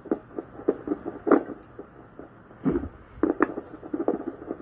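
Fetal heartbeat played through a handheld fetal doppler's speaker: a fast, even pulse of whooshing thumps, with a few louder swishes and scrapes as the probe and baby shift.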